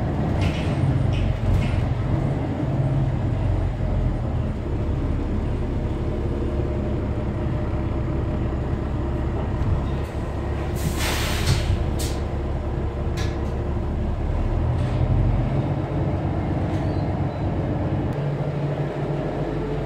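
New Flyer XD40 Xcelsior diesel city bus running steadily, with a sharp burst of air hiss from its air system about eleven seconds in and a few light clicks after it.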